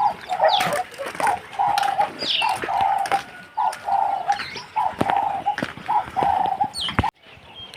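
A dove cooing: a long run of short, evenly repeated coos, with other small birds chirping. The sound cuts off abruptly near the end.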